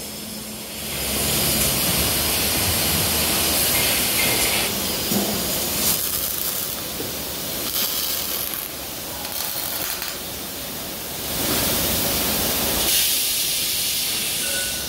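Robotic arc welder welding rebar cages: several welds in a row, each a steady noisy burst lasting one to three seconds, starting and stopping in turn over continuous machinery noise.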